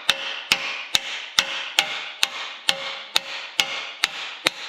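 Rawhide mallet tapping a ball bearing onto a John Deere BN's PTO shaft with even blows about two a second, each with a short metallic ring from the bearing and shaft.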